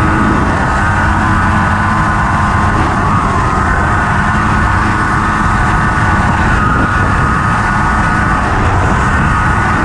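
1985 Honda FL350 Odyssey dune buggy's single-cylinder engine running hard under way, held at steady high revs with brief small dips in pitch about three and seven seconds in, over a low rumble.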